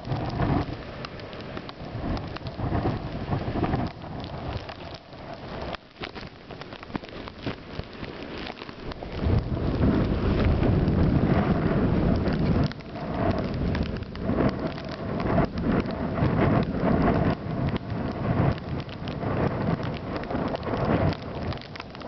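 Wind buffeting the camera microphone in a snowstorm: a rumbling rush of noise that gusts in and out, strongest around the middle.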